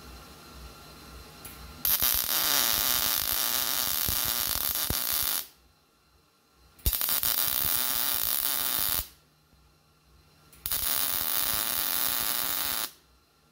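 Millermatic 211 MIG welder arc crackling as a bracket is stitch-welded onto a steel mower deck, in three short beads: the first about three and a half seconds long starting about two seconds in, then two of about two seconds each, each stopping abruptly.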